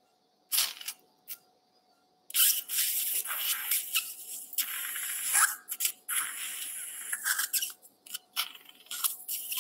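Surgical suction tip drawing fluid and air from an open surgical wound: a hissing slurp, one brief burst, then running for several seconds from about two seconds in, breaking into short bursts near the end.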